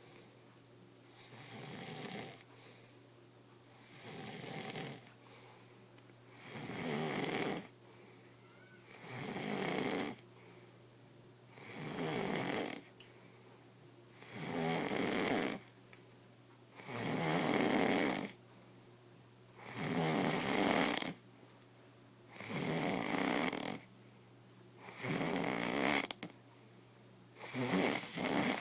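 A person snoring in slow, regular breaths, about one snore every two and a half seconds, the snores growing louder over the first ten seconds and then holding steady.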